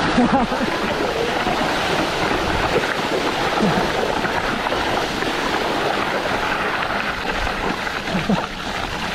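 Mountain bike tyres rolling and splashing through muddy water on a flooded dirt road: a steady rushing noise.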